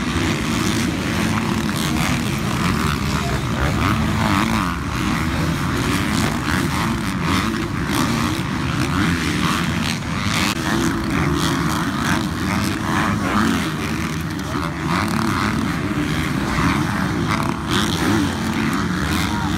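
A pack of motocross bikes racing, several engines buzzing together and revving up and down as the riders go over the jumps.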